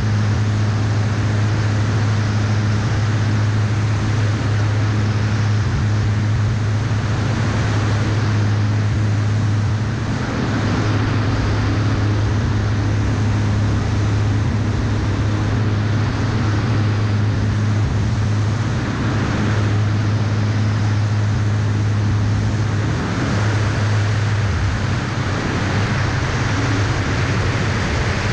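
Aeroprakt A22 ultralight's engine and propeller droning steadily in flight, heard from a wing-mounted camera with heavy wind rush over the microphone. The engine note shifts briefly about ten seconds in and again near the end.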